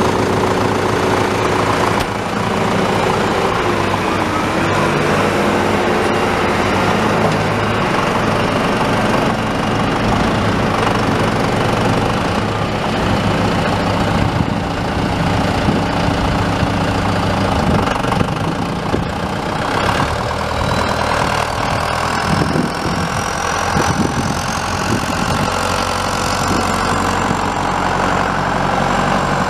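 John Deere 6420 tractor's four-cylinder turbo diesel engine running steadily. In the last third a thin high whine slowly rises in pitch over the engine.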